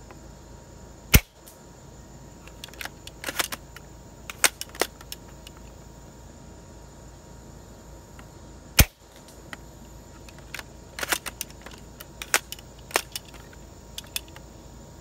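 ASG M40A3 spring-powered bolt-action airsoft sniper rifle, upgraded with VSR-10 parts, fired twice through a chronograph, the shots about seven and a half seconds apart, each clocking about 500 fps. After each shot comes a run of lighter clicks as the bolt is worked to re-cock it.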